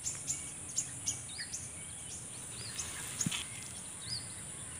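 Outdoor field ambience: a steady high-pitched insect drone with short bird chirps repeating every half second or so.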